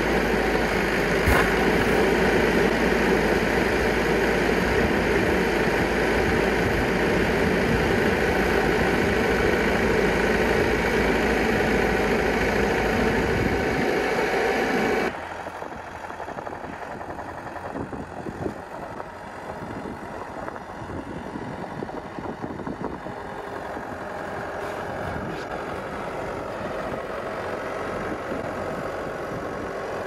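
Versatile 150 tractor's diesel engine running steadily close by while its front loader carries a round hay bale. About halfway through, the sound drops suddenly to a quieter, more distant engine.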